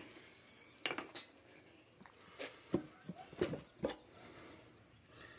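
A few light metallic clinks and knocks, scattered irregularly over the first four seconds. They come from a steel bar being handled against an oak barrel's head and metal hoop.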